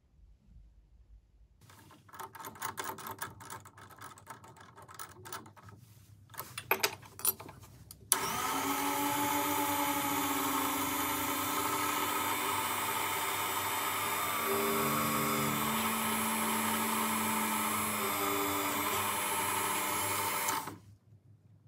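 Small benchtop drill press switched on about eight seconds in, its motor running steadily for about twelve seconds while drilling the thin metal brooch piece, then cut off abruptly. Before it, scattered clatter of tools and parts being handled.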